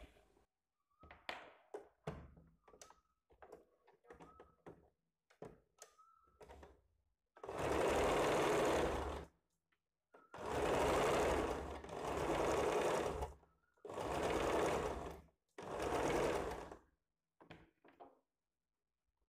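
Sewing machine stitching blouse fabric and lining together in five short runs of one to two seconds each, starting about seven seconds in. Before that come a few faint clicks and taps.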